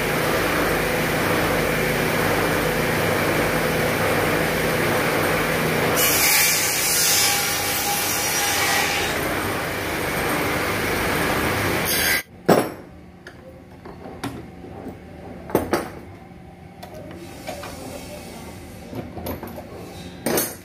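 Woodworking shaping machine running with a steady motor hum while it cuts a curved wooden chair part, with a harsher cutting hiss about six to nine seconds in. The machine noise stops abruptly near the middle, and a few sharp knocks follow as clamped wood is handled.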